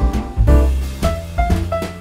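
Instrumental jazz background music, with a bass line under short melody notes.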